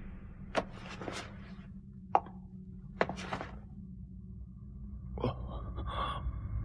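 Anime soundtrack sound effects: about five sharp knocks or impacts, irregularly spaced, over a low steady hum, then a short ringing sound near the end.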